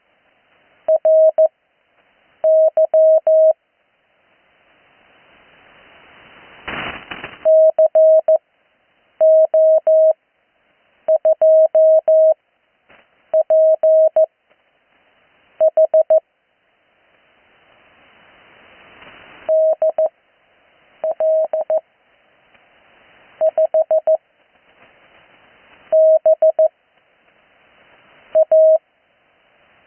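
Morse code (CW) received on the 80 m amateur band: a single steady-pitched tone keying call-sign characters quickly one at a time, with long pauses between them in the Farnsworth style. Band noise hiss swells in the gaps, and there is a sharp static crash about seven seconds in.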